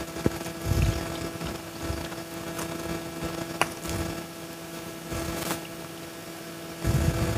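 Hands working a tangled monofilament gill net to free climbing perch: a few faint clicks and low bumps over a steady low hum.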